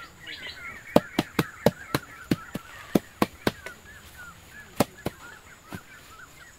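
Sharp dry clicks, about a dozen in quick irregular succession from about a second in, then three more spaced out, over continual high chirping of birds.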